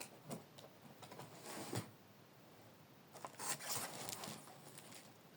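Faint rustling and light knocks from handling packaging and plastic toy-plane parts, a few scattered at first and a busier patch past the middle.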